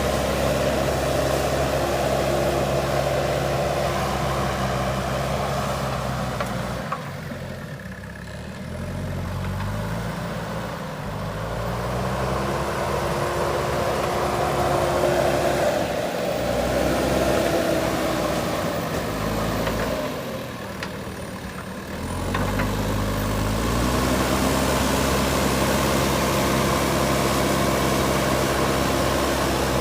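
JCB backhoe loader's diesel engine working at high revs, easing off twice, about seven seconds in and again around twenty seconds, and revving back up each time.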